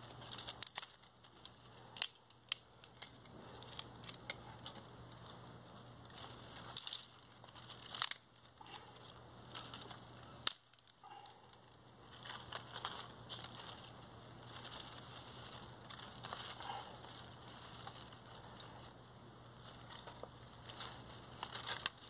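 Dry twigs, grass and leaf litter handled and broken by hand. There are a few sharp snaps of twigs breaking in the first half, then a longer stretch of crackly rustling of dry grass and leaves.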